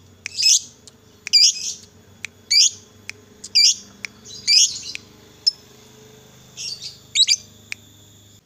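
Fischer's lovebird calling: sharp, shrill chirps about once a second, with a gap past the middle and a quick pair of chirps near the end.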